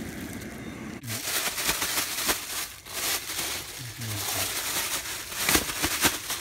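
Plastic bag crinkling and rustling as fish are emptied from it into a plastic basin, with a couple of sharp knocks near the end.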